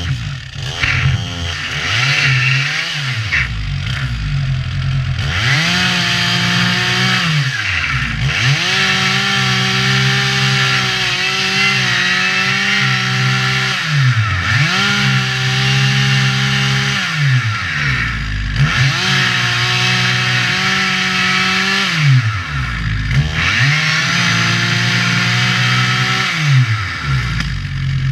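Chainsaw cutting into a standing dead tree while it is felled. The saw is run up to full throttle for a few seconds at a time, about five times, and drops back to idle between cuts.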